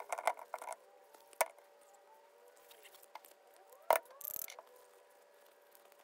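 A cloth rubbing and wiping on a plastic dishwasher pump motor housing, then sharp clicks of the plastic parts being handled: one about a second and a half in and a louder one near four seconds, followed by a brief hiss. A faint steady hum runs underneath.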